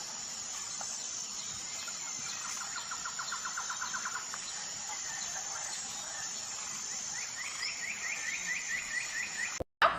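A bird calling in two runs of quick repeated chirping notes, the second run higher-pitched than the first, over a steady hiss of background noise.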